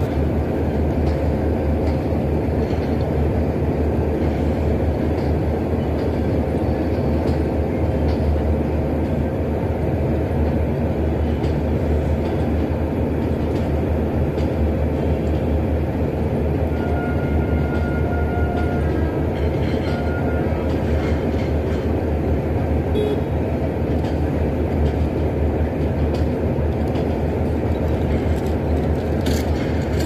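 Passenger train coaches rolling slowly through a station, a steady low rumble of wheels on rail.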